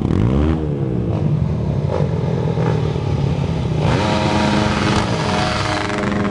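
Off-road dirt bikes riding past one after another, engines revving, each engine's pitch dropping as it goes by. A second, louder pass comes about four seconds in as two bikes approach together.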